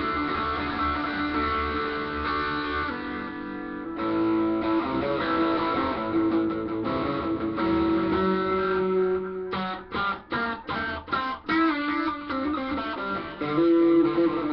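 Electric guitar played alone, ringing chords and notes that change every second or two. About ten seconds in comes a quick run of about six short, choked stabs before the ringing chords return.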